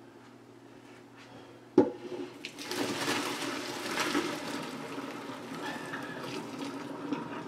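A sharp clank about two seconds in, then the pot of pasta water is poured off into a colander in the sink, a steady splashing pour that runs on to the end.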